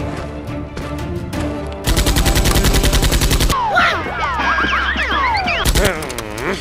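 Background music with a beat, then a rapid burst of machine-gun fire, about a dozen shots a second for a second and a half. Sliding whistle-like tones rising and falling follow, with one loud shot near the end. The gunfire is the dubbed-in effect of an action film.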